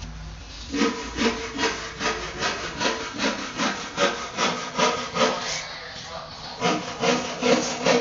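Rhythmic rasping, rubbing strokes, about two and a half a second, pausing briefly around six seconds in and then resuming.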